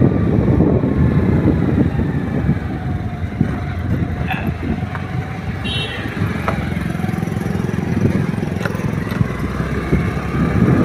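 Scooter engine running at riding speed, with heavy wind rushing over the microphone as it rides along; a couple of short high chirps sound about halfway through.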